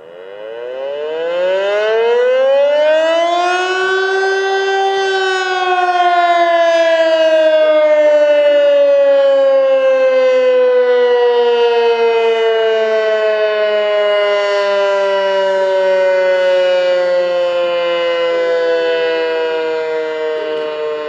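East German DS977 electric motor siren sounding the test signal. It winds up from standstill with a steeply rising wail over about five seconds, then holds loud while its pitch sinks slowly and steadily.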